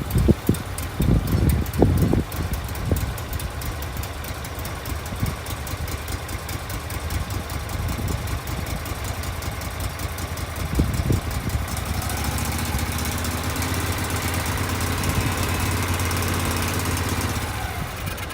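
Wood-Mizer LT15 sawmill's engine having just started: it runs roughly, with irregular bangs, for the first couple of seconds, then settles into steady running. About twelve seconds in it runs a little harder, and it winds down near the end.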